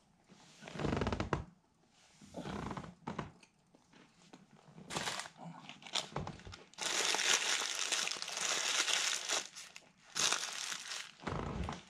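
A paper sandwich wrapper being crumpled and crinkled in the hands in several bursts, loudest in the second half, after two duller handling sounds in the first three seconds.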